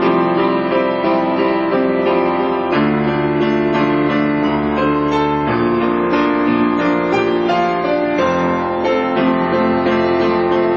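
Background music: a slow piano-led track of sustained chords, changing chord about every three seconds.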